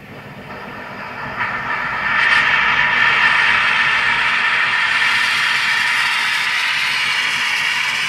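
Small gas welding torch flame hissing. It grows louder over the first two seconds as the yellow flame is turned up into a thin blue brazing flame, then holds steady.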